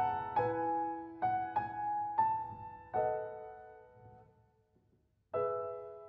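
Background music: a solo piano playing slow single notes and chords that ring out and decay. The notes die away to silence about four and a half seconds in, and a new chord starts just after five seconds.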